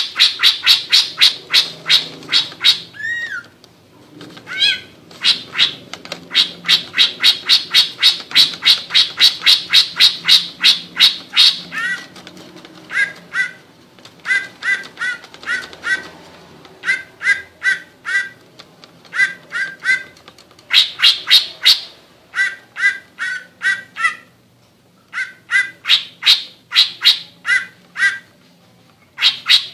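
Greater green leafbird (cucak ijo) singing its ngekek: long runs of rapid, harsh repeated notes, about five a second, broken by short pauses. From about twelve seconds in, the notes come in quick pairs and triplets with a lower tone under them.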